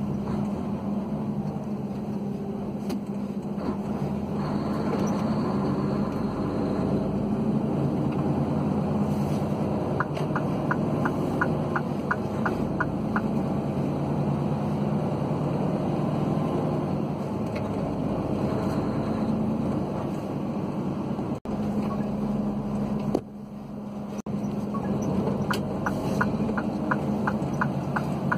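Engine and road noise heard from inside a moving car, steady throughout. A turn indicator ticks at about three ticks a second for some three seconds about ten seconds in, and starts ticking again near the end.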